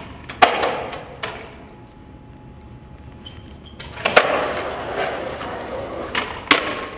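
Skateboard on concrete: a few sharp clacks of the board, then a loud hit about four seconds in followed by the steady rolling noise of the wheels, with one more clack near the end.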